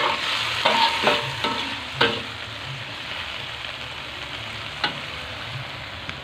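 Water spinach sizzling as it stir-fries in a wok, with a spatula scraping and knocking against the pan several times in the first two seconds. The sizzle carries on alone after that, with one sharp click later on.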